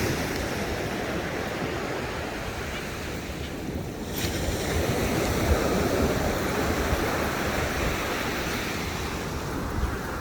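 Ocean surf breaking and washing up the beach, swelling louder about halfway through as a wave comes in. Wind buffets the microphone throughout.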